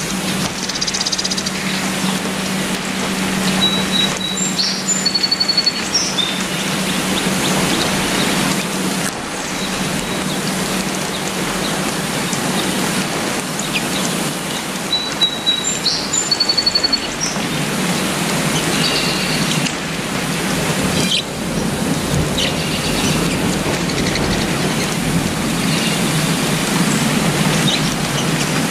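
Steady rain falling on tree foliage. A bird gives short, high chirps a few times, around four to six seconds in and again around fifteen to seventeen seconds.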